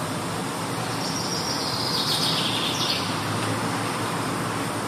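Steady background hiss, with a higher, hissing layer over it for about two seconds near the middle.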